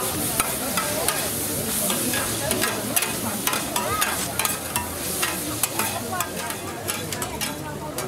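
Noodles sizzling as they are stir-fried on a large flat street-food pan, with metal spatulas scraping and clicking against the pan many times. The sizzle drops away near the end.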